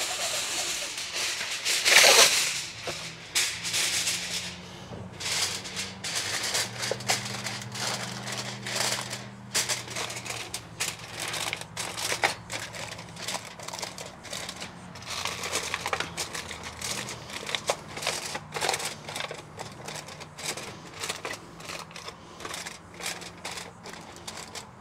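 Aluminum foil being pulled from its roll and torn off, loudest about two seconds in, then crinkling and crackling as it is pressed and crimped around the rim of a disposable aluminum foil pan.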